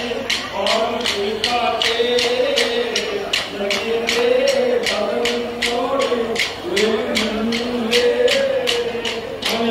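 Hands clapping in a steady rhythm, about three claps a second, together with a wavering sung melody.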